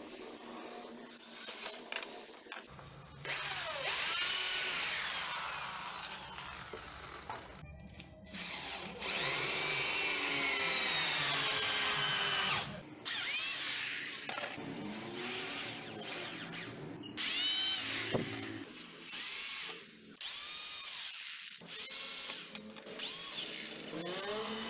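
Corded electric drill working into wooden boards in a series of runs, its motor whine rising as it speeds up and falling away each time it stops. The longest and loudest run comes a little before the middle, followed by a string of shorter bursts.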